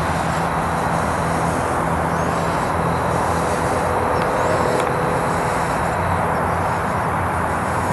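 Steady noise of road traffic from a busy street.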